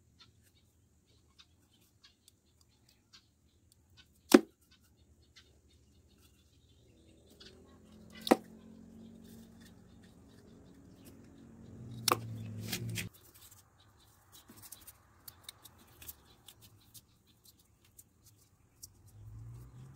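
Small handling sounds and a few sharp snaps as a small black plastic tube is cut into short pieces with a knife; the loudest snap comes about four seconds in, with others around eight and twelve seconds. A low steady hum comes in about seven seconds in and stops suddenly around thirteen.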